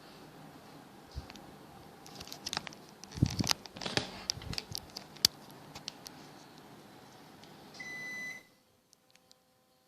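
A run of clicks and rattles, then a short electronic beep from an air conditioner's indoor unit acknowledging the remote. The steady fan noise cuts off right after the beep, as the unit switches off.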